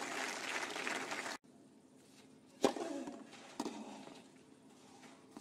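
Crowd applauding, cut off abruptly about a second and a half in. Then two sharp tennis racket strikes on the ball about a second apart, each with a short ringing echo.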